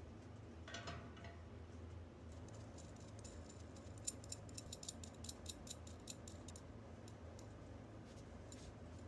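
Faint, quick metallic clicks and ticks of a steel rod with nuts on it being handled over a stainless-steel mesh fire basket, bunched in the middle few seconds, over a steady low hum.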